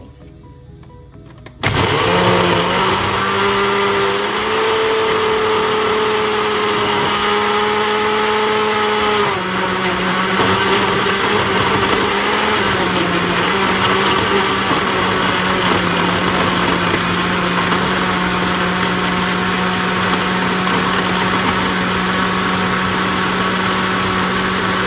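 Countertop blender switching on about two seconds in and running steadily, blending bananas, spinach, soy milk and ice cubes into a smoothie. Its motor tone shifts slightly a few seconds later.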